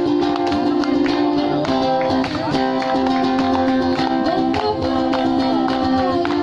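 Live acoustic music: a plucked guitar with a held melody line over it, the notes stepping from pitch to pitch.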